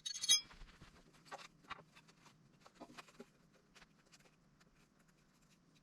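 Faint, scattered clicks and taps of small metal parts and hand tools being handled while a gauge is fitted into the compressor, with one brighter, ringing metallic clink at the start.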